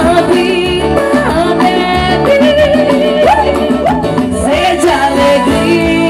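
Live forró band music with accordion and a steady beat, and a woman singing.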